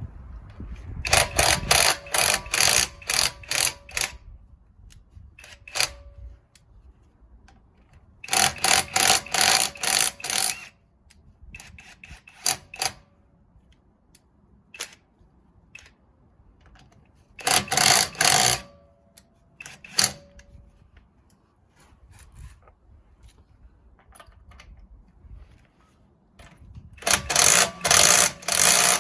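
Impact wrench cracking wheel nuts loose, in four bursts of rapid hammering, each one to three seconds long, with light clicks and knocks between them as the socket is moved from nut to nut.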